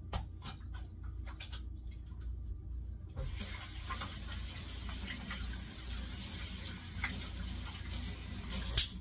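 Kitchen sink faucet running, a steady hiss of water that starts about three seconds in, with a few light clicks before it. A single sharp click near the end is the loudest sound.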